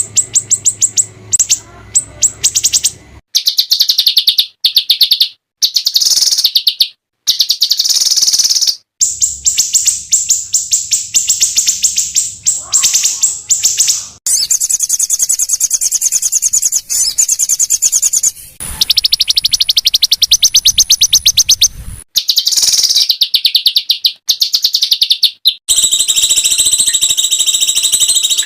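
Small songbirds giving rapid, rough, high-pitched trills: fast bursts of repeated notes, the 'tembakan kasar' style used in masteran training recordings. The song comes in segments that cut off abruptly, several times over, as clips are spliced together.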